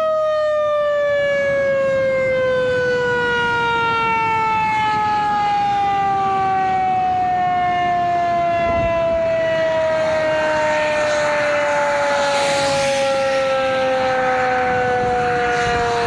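Outdoor warning siren sounding two tones together, both falling slowly and steadily in pitch as it winds down. Under it runs a rushing noise that swells in the second half.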